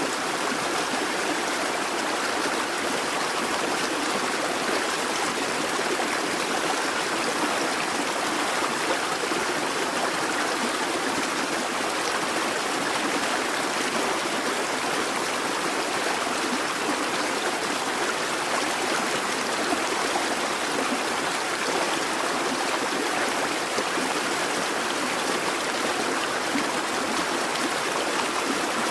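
A busy babbling brook: water rushing and burbling over stones in a steady, unbroken flow.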